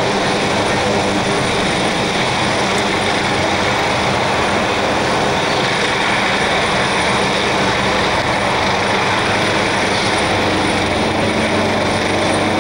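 AgustaWestland AW139 twin-turbine rescue helicopter flying just after take-off, its rotor and turbines running steadily and loud, with a steady low hum.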